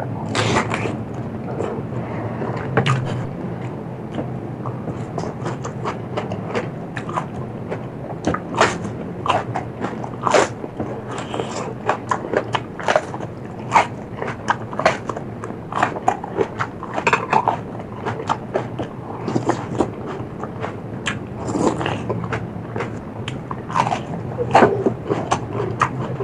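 A person chewing and biting crunchy food close to the microphone, with frequent, irregular sharp crunches throughout.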